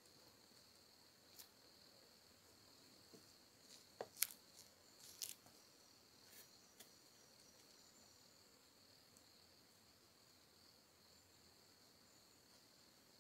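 Near silence: faint, steady high-pitched insect chirring, with a few short soft clicks about four to five seconds in.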